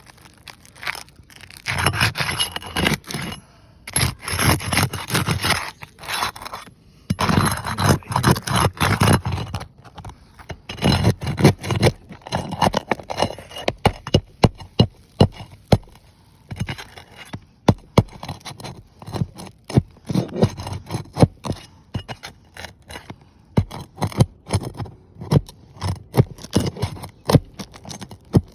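Tool scraping under asphalt shingles to work the nails out and pop the shingles up: several long scrapes in the first ten seconds, then a run of sharp clicks and knocks.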